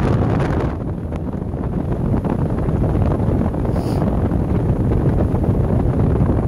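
Wind buffeting the microphone while riding fast down a mountain road: a steady low rumble that eases slightly about a second in.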